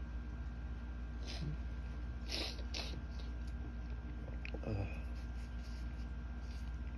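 A person sniffing through an allergy-irritated nose: a few short, quiet sniffs, two of them close together a little over two seconds in, over a steady low hum.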